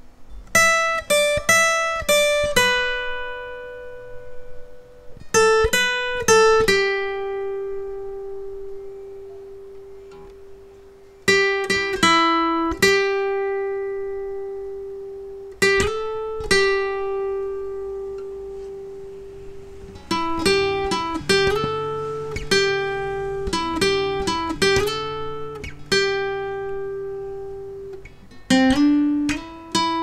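Acoustic guitar playing a slow single-note melody high on the neck: short runs of picked notes with slides, each phrase ending on a note left ringing for several seconds before the next run.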